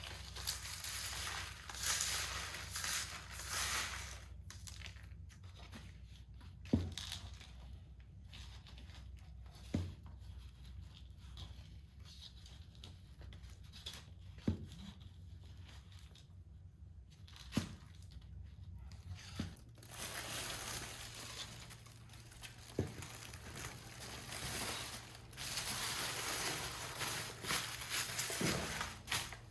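Rustling and crinkling handling noises in spells, with several short knocks scattered through, over a low steady hum.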